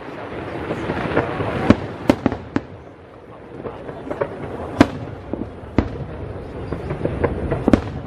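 Aerial fireworks shells bursting: sharp bangs and pops at irregular intervals over a steady background din, the loudest bang a little before the middle.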